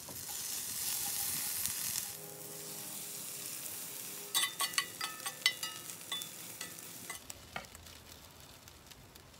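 Leftover potatoes, asparagus and chicken frying with eggs in a cast iron skillet: a strong sizzle for about two seconds, then a quieter steady sizzle. From about four and a half seconds a metal utensil clicks and scrapes against the pan repeatedly for a couple of seconds, with a brief ring on the sharper hits.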